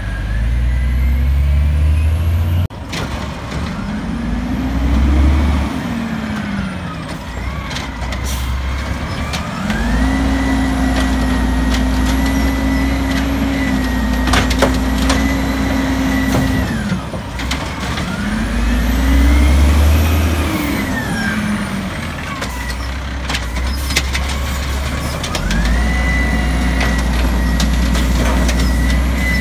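2005 diesel automated side-loader garbage truck with an Amrep body at work. The engine revs up and falls back, twice holding high and steady for several seconds, with a pitched whine that rises and falls with the revs as the hydraulics run. Sharp knocks come in between.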